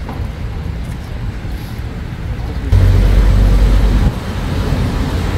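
Street traffic noise, a steady low rumble of cars. About halfway through it gets suddenly louder and deeper for a second and a half, then drops back.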